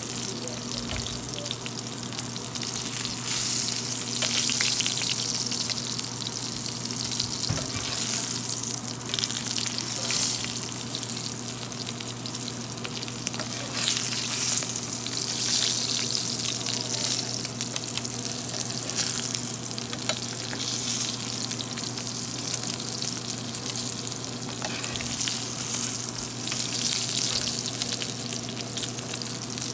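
A5 Japanese wagyu striploin searing in a skillet of rendered beef fat: a steady, crackling sizzle that swells and eases every few seconds as tongs move the steak in the hot fat.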